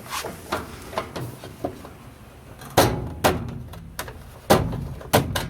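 Knocks and clicks of the Kenmore washer's plastic and metal panel parts being flipped back and snapped into place on their clips: a few light taps, then four sharper knocks in the second half.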